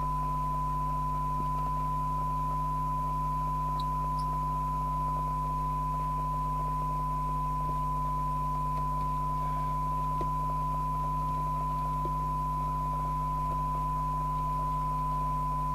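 Steady 1 kHz test tone from the Harrier CBX CB radio's speaker: the signal generator's tone modulation recovered by the receiver during a SINAD sensitivity check. A low hum sits underneath.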